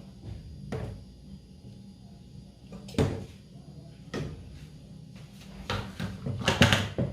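A few separate knocks and bumps of kitchen handling, like a cupboard or door being opened and shut. One loud knock comes about three seconds in, and a quick cluster of louder ones comes near the end.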